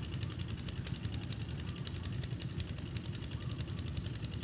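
A small engine running steadily, a low rumble with a rapid, even ticking clatter over it.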